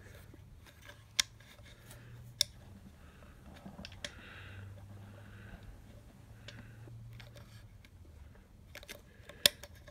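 A handful of sharp plastic clicks and taps as a plastic nut fastener is worked onto a solar light's hinge by hand, the loudest click near the end, over a faint low hum.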